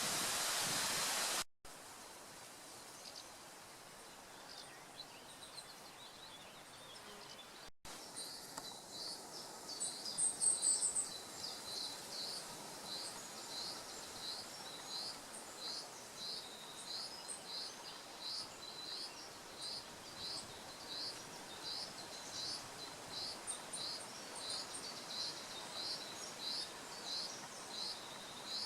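Beck water rushing for a moment, then, after a cut, faint woodland quiet. After a second cut a high chirp repeats steadily, about one and a half times a second, with a short higher trill about ten seconds in.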